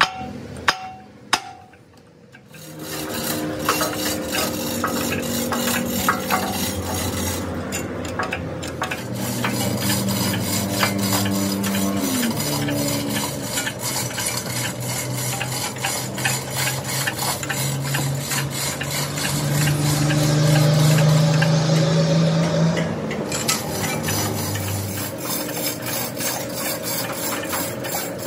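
Metal being worked in a shop: a continuous rasping, scraping noise of cutting or filing over the hum of a running machine whose low tone shifts in pitch. It starts after a couple of sharp clicks and swells a little past the middle.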